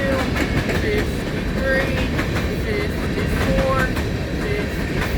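Empty coal hopper cars rolling past at speed: a steady rumble with wheel clicks over the rail joints, and short squeals about once a second.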